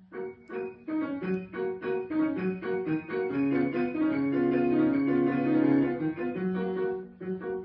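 Piano music: a run of quick notes that builds into louder held chords between about three and six seconds in, then thins out again.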